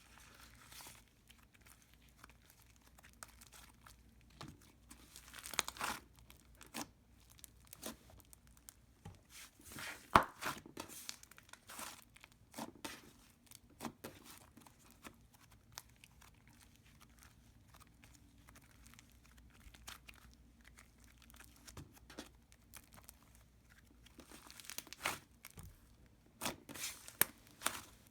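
Butter slime being squished, stretched and spread by hand, making an irregular sizzly crackling with sticky pops, louder in a few clusters near the middle and near the end.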